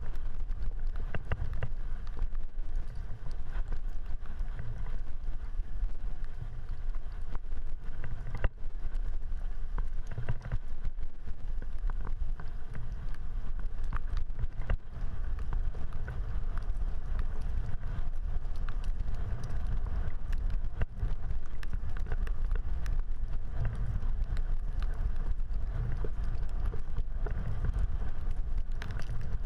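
Wind buffeting the microphone of a camera riding on a road bike, a steady low rumble, mixed with tyre and road noise on wet pavement and scattered clicks and rattles from the bike over bumps.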